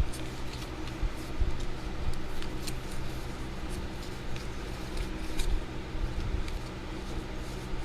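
Trading cards being handled on a table: faint scattered ticks, slides and soft taps, over a steady low hum.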